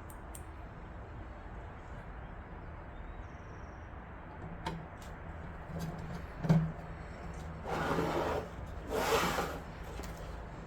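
Motherboard being handled and slid into place in a metal PC case: a few light knocks, the loudest about two-thirds of the way in, then two short scraping slides near the end as the board is lined up.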